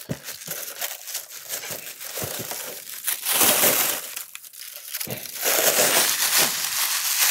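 Thin plastic wrapping crinkling and rustling as a statue is pulled out of it. There are light clicks and scrapes at first, then louder crinkling about three seconds in and again from about five seconds in.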